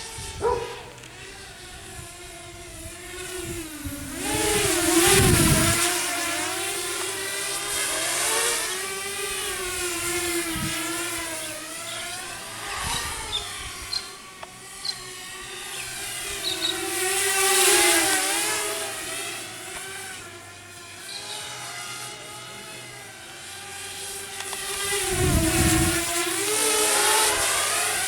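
Walkera F210 racing quadcopter's motors and propellers whining, the pitch rising and falling continually with the throttle and swelling louder several times. There are low gusty rumbles twice, about 5 s in and near the end.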